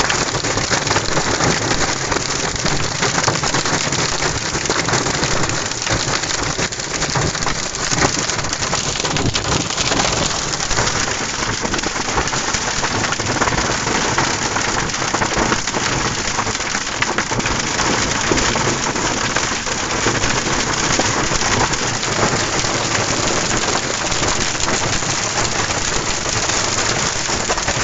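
Hail and heavy rain pelting a GMC pickup truck's roof and windshield, heard from inside the cab: a dense, steady clatter of countless small impacts.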